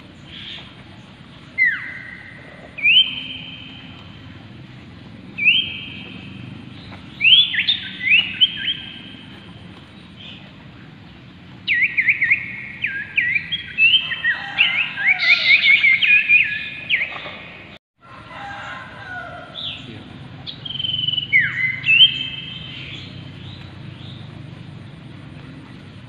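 Common ioras singing: clear drawn-out whistles, some sliding down in pitch, broken about halfway through by a few seconds of rapid excited chattering, then more whistles near the end.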